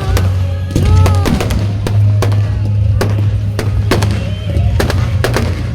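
Fireworks going off in rapid succession, many sharp bangs and crackles one after another, over music.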